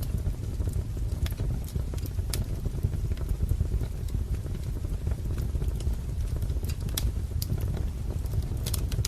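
Wood fire crackling, with a steady low rumble of the burning and irregular sharp pops and snaps of the burning logs.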